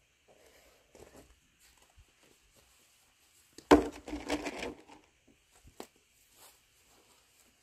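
A sharp knock, then about a second of rustling and scraping close to the microphone as someone handles a leash and puppy right beside it, with a few faint clicks before and after.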